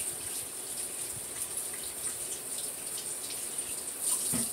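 Sink faucet running steadily as paint-covered fingers are rinsed under it; the water cuts off at the end.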